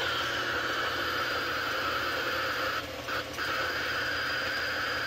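Eberline RM-14SA Geiger counter with a pancake probe, its speaker clicking so fast that the clicks merge into a steady hiss: the meter is pegged by heavy X-rays (bremsstrahlung) from a homemade electron-beam tube. The hiss drops out briefly twice about three seconds in, over a low vacuum-pump hum.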